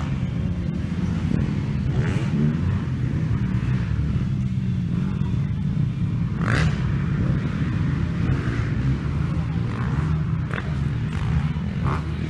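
Motocross bikes racing on a dirt track, their engines revving up and down as they pass, over a steady low rumble.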